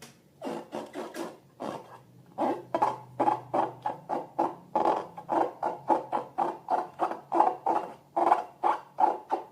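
Slime being squeezed and kneaded in a rhythmic train of wet squelches, about three a second.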